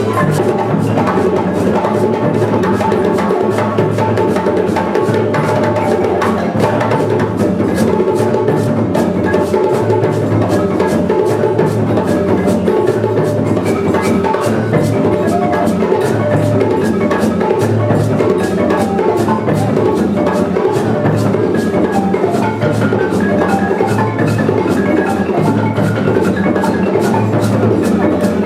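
Music played on drums and a wooden mallet percussion instrument like a xylophone, in a steady, dense rhythm.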